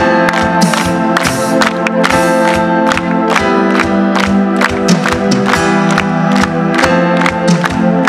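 Live pop band playing an instrumental passage: held keyboard chords over a steady drum beat, with concert crowd noise underneath.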